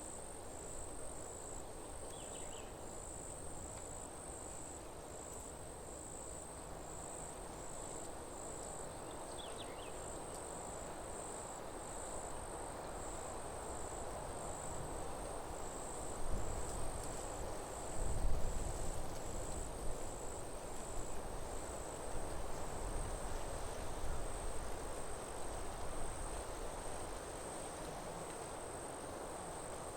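Crickets chirping: a high, thin chirp repeating about twice a second that runs into a more continuous trill in the second half, over a steady outdoor hiss. A low rumble swells in the middle of the stretch.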